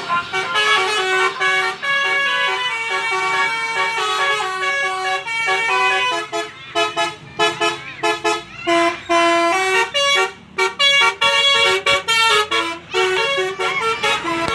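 Bus 'telolet basuri' multi-tone musical horn playing a melody. It holds notes for the first half, then plays short, choppy notes with brief gaps between them.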